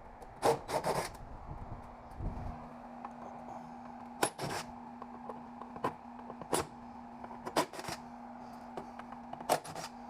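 Hand snips cutting wires out of a mini split AC unit: sharp snips at irregular intervals, some in quick pairs. A low thud about two seconds in, then a steady low hum.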